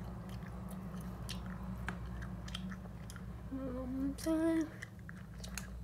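Scissors snipping, heard as scattered small clicks over a steady low hum. A person gives a short hummed "mm-hm" about three and a half seconds in.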